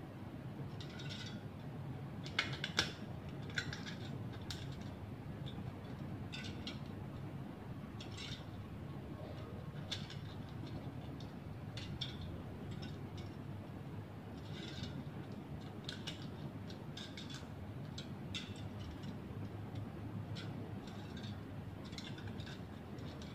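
Thin sheet metal of a cut tin can being worked by hand, its slit strips bent and folded, giving irregular small metallic clicks and crinkles, a few sharper ones about two to four seconds in.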